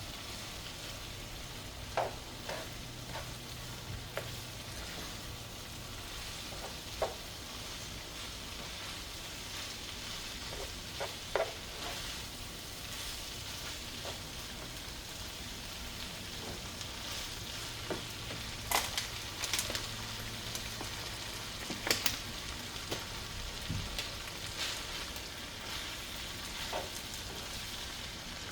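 Ground beef with taco seasoning and a little water sizzling steadily in a pan, with the sharp click of a utensil against the pan now and then as it is stirred.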